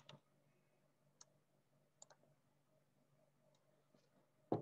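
Near silence over a low steady hum, broken by a few faint sharp clicks, with a louder knock near the end.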